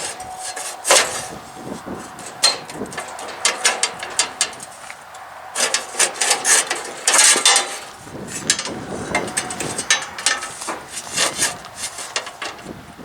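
Metal parts of a riding mower being handled and fitted: irregular clinks, knocks and bursts of quick clicking, with a dense run of clicking a little after the middle.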